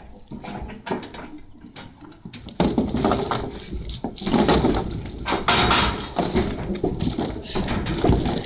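Heavy steel chain clinking and rattling as it is dragged and pulled tight over redwood logs on a trailer deck, with scattered clinks at first and dense, louder clattering from about two and a half seconds in.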